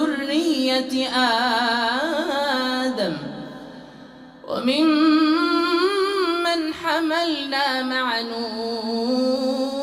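A male Quran reciter chanting in melodic tajweed, drawing out long ornamented notes, amplified through a microphone. The voice breaks off briefly about three seconds in, then resumes with another long held phrase.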